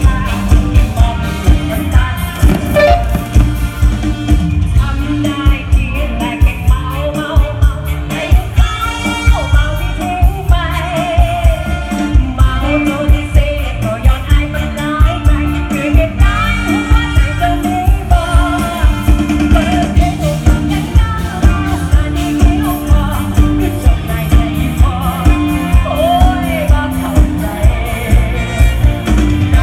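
Live Isan luk thung band playing amplified through the stage PA, with a singer's voice over a steady drum beat.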